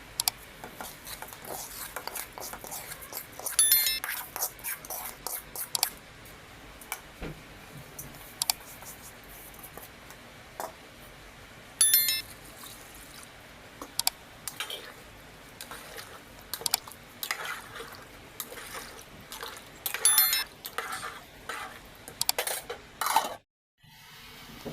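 Cutlery clinking and scraping on a plate during a meal, with many small clicks and three sharper ringing clinks spaced about eight seconds apart.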